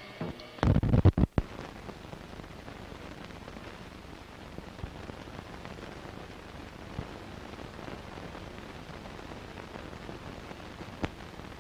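Surface noise of an old film soundtrack running over blank leader: a few loud thumps and pops about a second in, then a steady hiss with scattered sharp clicks.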